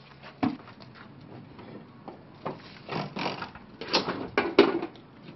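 Hand masonry work: trowels scraping and knocking on plaster and mortar, a run of short scrapes and thuds with the loudest about four and a half seconds in.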